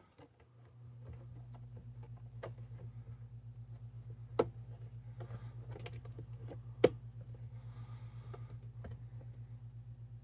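Light plastic clicks and taps of laptop parts being handled and fitted back together, with two sharper snaps about four and seven seconds in. Under them, a steady low hum starts about a second in and pulses several times a second.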